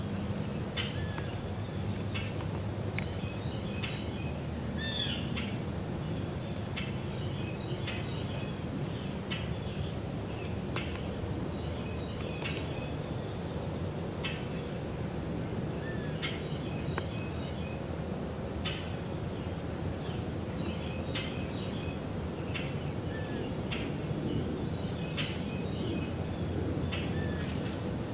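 Summer woodland in the morning: birds calling and chirping over and over, over a steady high insect drone and a low, even background noise.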